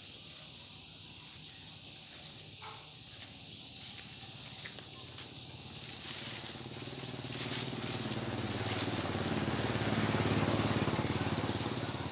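Outdoor ambience with a steady high insect drone; in the second half a low engine rumble grows louder and fades again, like a motor vehicle passing.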